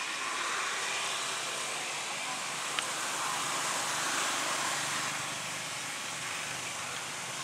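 Steady hiss-like outdoor background noise with no distinct source, and one sharp click about three seconds in.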